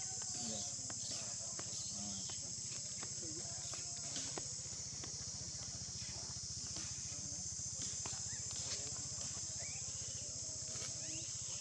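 A steady, high-pitched chorus of insects over a low steady hum, with scattered faint clicks.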